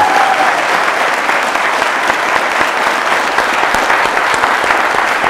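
A crowd of people clapping and applauding steadily.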